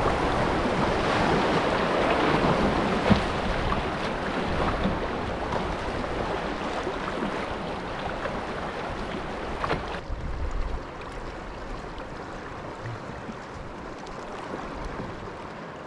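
Rushing river rapid around a canoe as it runs through fast water, with wind buffeting the microphone. The water noise drops sharply about ten seconds in.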